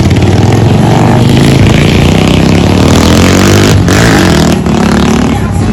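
Motorcycle engines running and revving, the pitch rising and falling.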